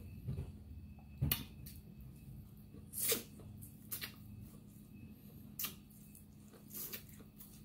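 A person eating sauce-coated seafood-boil corn on the cob, biting and chewing, with about half a dozen short wet clicks and smacks scattered over a quiet background.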